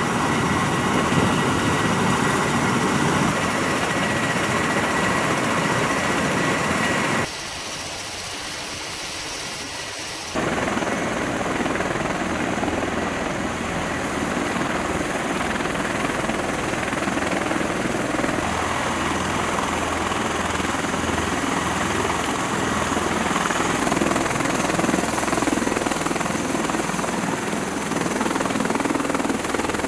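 MV-22B Osprey tiltrotors running on the flight line: a loud, steady rush of proprotor and turbine noise, with a steady high turbine whine over the first several seconds. The sound drops to a quieter level for about three seconds, then comes back up to full loudness.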